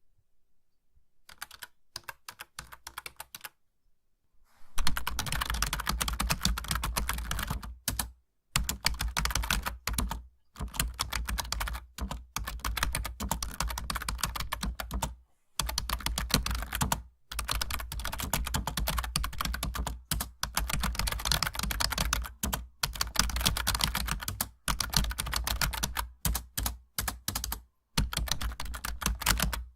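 Typing on a laptop computer keyboard: a few faint, scattered key clicks for the first few seconds, then steady, rapid typing in runs of many keystrokes broken by short pauses.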